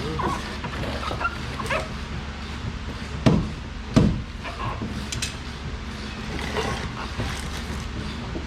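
Two sharp knocks, a little over three and four seconds in, from work on a car's front suspension, with short high whines or squeaks scattered around them.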